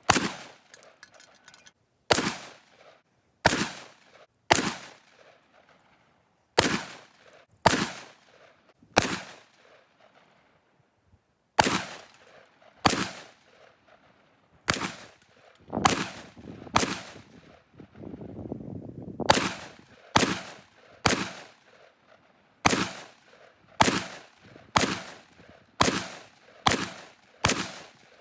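A gun fired shot after shot, about twenty sharp cracks, each with a short fading echo. The shots are spaced a second or two apart at first and come quicker, about one a second, near the end.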